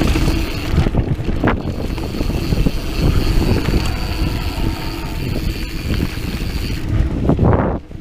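Wind buffeting the microphone and the rumble of a mountain bike riding over a dirt trail, with irregular knocks from bumps.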